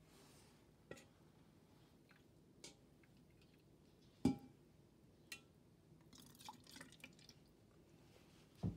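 Faint drips and small clicks of jelly liquid falling from a metal ladle into plastic cups on a metal tray, with one louder knock about four seconds in.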